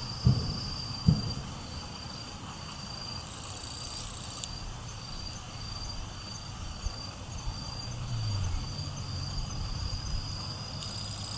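Insects trilling steadily at a high pitch, one pulsing trill under a higher continuous tone. A couple of short low thumps in the first second, and a low rumble that falls in pitch about eight seconds in.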